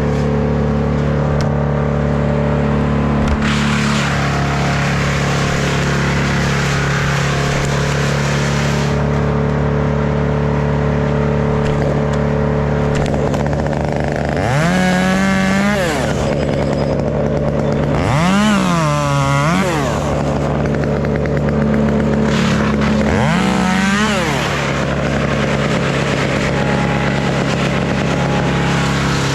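Stihl MS 201 top-handle two-stroke chainsaw running, revved up and let back down three times, each rev lasting a second or two, over a steady engine drone.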